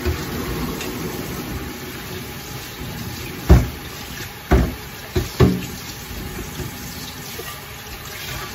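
Squid simmering in adobo sauce in a pan, giving a steady bubbling hiss. Four sharp knocks stand out, at about three and a half, four and a half and twice near five and a half seconds in.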